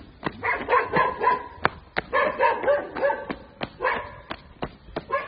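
A dog barking in three or four clusters of short, quick barks. Under the barks, footsteps crunch on gravel at about three steps a second.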